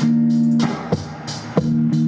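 Stratocaster-style electric guitar playing held chords that change every half second or so, over a drum-machine beat.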